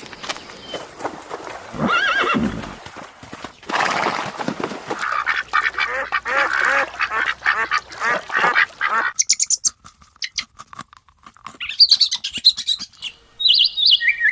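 A run of animal calls: one call about two seconds in, then a dense stretch of quick repeated calls that stops abruptly about nine seconds in, followed by high chirps near the end.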